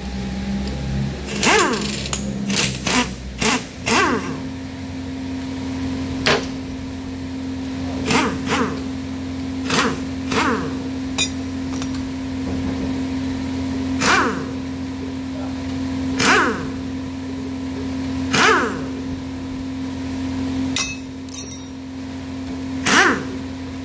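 Impact wrench undoing bolts on the front of an engine being dismantled, run in short bursts every couple of seconds, each one falling in pitch as it winds down. A steady hum runs underneath from about four seconds in.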